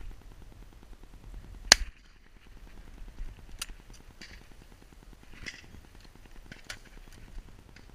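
A single loud shotgun shot about two seconds in, followed by a few much fainter clicks.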